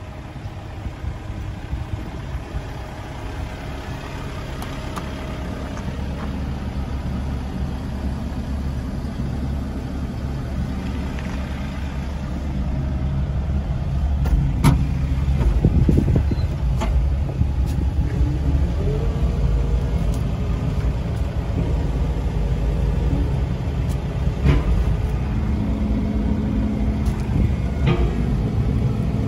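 Caterpillar 308E2 mini excavator's diesel engine running steadily, growing louder about halfway through. There is a brief rising whine a little past the middle, and a few sharp clicks and knocks.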